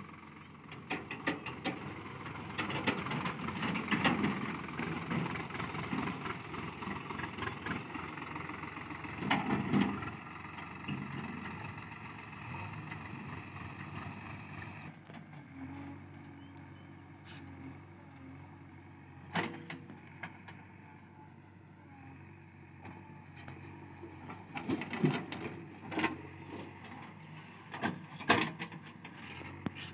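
Diesel engines of a tractor with a trailer and a JCB backhoe loader running at work, louder and busier for the first half, then settling to a steadier, quieter run. Several sharp knocks and clanks come in the second half as the backhoe digs beside the trailer.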